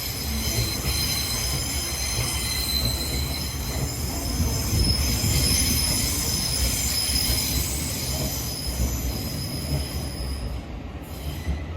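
Class 700 Thameslink electric multiple unit passing: a steady rumble of wheels on rails overlaid with several high steady whining tones. It grows loudest near the middle and fades away towards the end.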